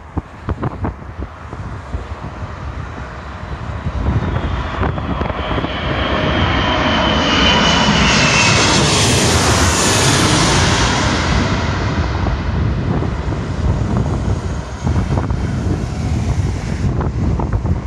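Boeing 747-400 freighter on low final approach with gear down, its four jet engines growing louder as it closes in. The noise is loudest as it passes directly overhead, where a high whine falls in pitch. It then settles into a steady rumble as the aircraft moves away toward the runway, with wind buffeting the microphone.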